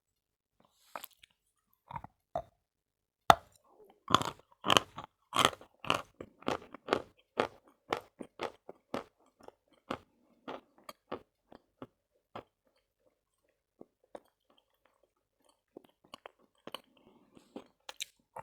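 Chunks of Khrapovsky natural chalk being bitten and crunched between the teeth close to the microphone. A sharp bite comes about three seconds in, then a fast run of crunches for a few seconds, then slower, sparser chewing that tails off, with a few more crunches near the end.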